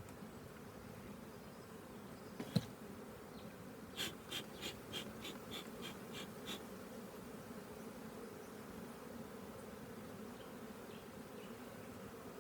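Honeybees buzzing steadily around an open hive. A sharp knock comes about two and a half seconds in, followed by a quick run of about nine clicks.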